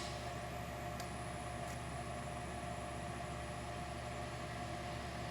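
Cyclematic 618e toolroom lathe running at steady speed: a constant mechanical hum with a faint high whine.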